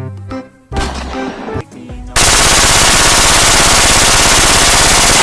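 Very loud, continuous rapid machine-gun fire, starting about two seconds in and stopping near the end with a short fading tail. Music with a bass beat plays before it.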